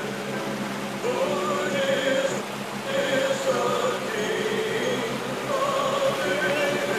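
Choral singing, sustained notes held in phrases of about a second each, over a steady low hum.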